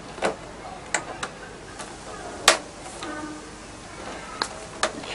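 Sharp plastic clicks and snaps from a knife prying apart the plastic casing of a Samsung SyncMaster LED monitor as its small snap-fit clips pop loose. There are about six separate clicks, the loudest about halfway through.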